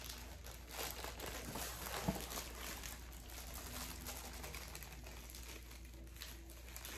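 Clear plastic packaging bag crinkling irregularly as a packaged mini tripod is handled inside it.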